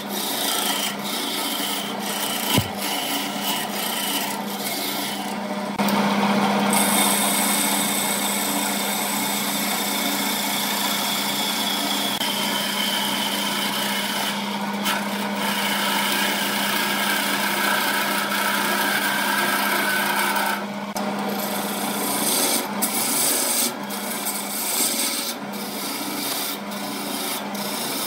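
Wood lathe running with a steady hum while a turning gouge cuts the spinning wooden blank, a continuous scraping, shaving hiss. From about six seconds in to about twenty-one seconds the cut is heavier and louder, throwing chips off the blank.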